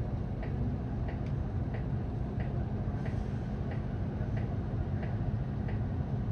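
City bus engine idling while the bus stands still, heard from the driver's end of the cabin, with the turn-signal indicator ticking steadily about one and a half times a second.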